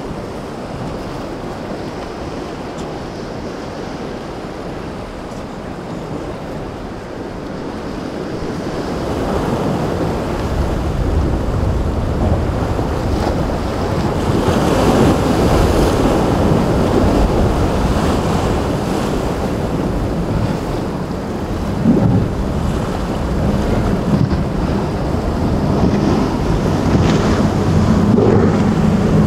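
Surf breaking and washing in an inlet, with wind buffeting the microphone. The sound swells louder about a third of the way through, and there is one sharp thump a little past two-thirds in. Near the end the steady drone of a motorboat's engines rises under the surf.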